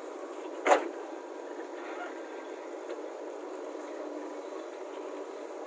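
Steady diesel engine running of a JCB 3DX backhoe loader at work, with one sharp, loud knock a little under a second in.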